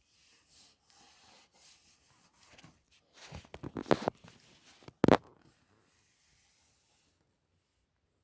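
Handling noise: rubbing and scraping of objects being moved, with a quick cluster of knocks about three to four seconds in and one sharp knock about five seconds in.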